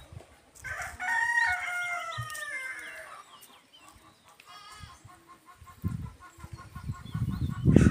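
A rooster crows once, a drawn-out cock-a-doodle-doo of about two and a half seconds that falls in pitch at the end. A brief fainter call follows a little later, and a low rumble comes in near the end.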